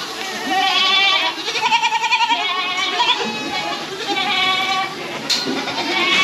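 A barn full of goats bleating, one quavering call after another and often overlapping, as feed goes into their trough.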